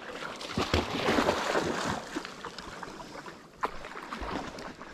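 Water splashing and sloshing, with scattered knocks and rustles, busiest in the first two seconds.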